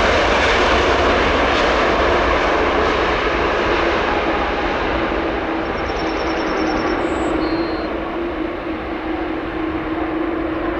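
Boeing 767-300 freighter's jet engines roaring as it rolls out after touchdown with spoilers raised. The roar slowly eases as the aircraft slows, and a steady whine comes up partway through.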